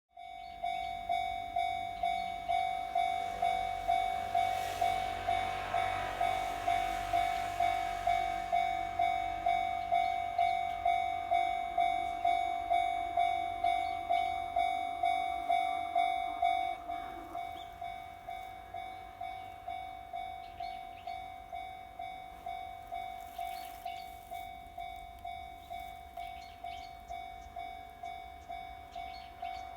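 Japanese railway level crossing's electronic warning bell ringing in a steady rhythm of about two dings a second, dropping somewhat in volume about 17 seconds in. A rushing noise swells and fades under it in the first ten seconds or so.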